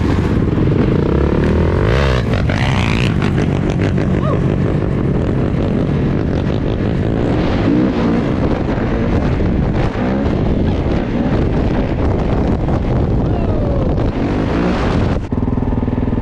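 Kawasaki KX450 dirt bike's four-stroke single-cylinder engine revving hard under way, its pitch climbing steeply about two seconds in and rising and falling with the throttle after that. Near the end the sound changes abruptly to a steadier, lower engine note.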